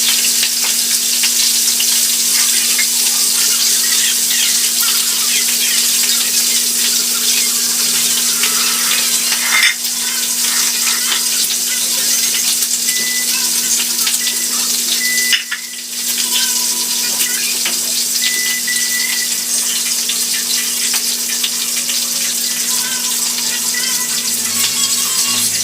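Food sizzling and crackling as it fries in hot oil, steady throughout, with a steady low hum underneath. The sizzle drops away briefly twice, most clearly about two-thirds of the way through.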